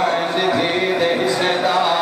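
A man's voice reciting in a sung, melodic chant through a microphone and loudspeakers, holding and bending its notes without a pause.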